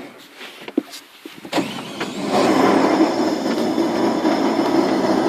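A steady mechanical noise starts about a second and a half in, builds over the next second, then runs on loud, preceded by a few light knocks.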